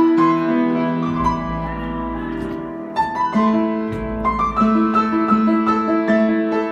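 Grand piano played by hand: a chord is held for the first few seconds, then a new chord is struck about three seconds in, followed by a run of repeated notes.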